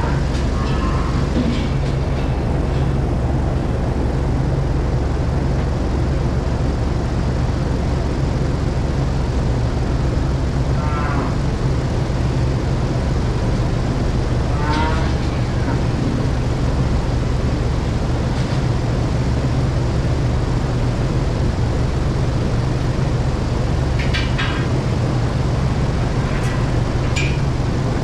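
Large barn ventilation fans running, a steady low motor hum. A few short calls or voices cut through it now and then.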